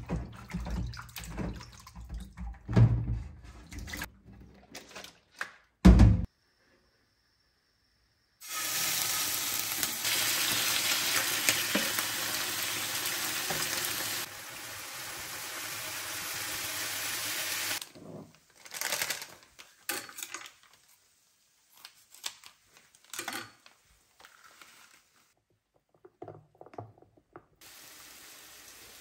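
Tap water running into a sink for about nine seconds, its sound changing partway through, between knocks and thumps of things being handled; a sharp thump comes about six seconds in.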